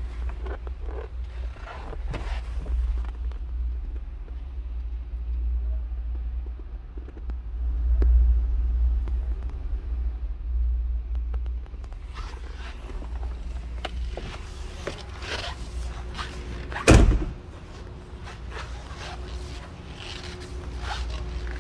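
Handling noise from a handheld camera moving about inside a car, with a strong low rumble on the microphone at first. After that come small clicks and rustles of things being handled, and one loud thump about two-thirds of the way through.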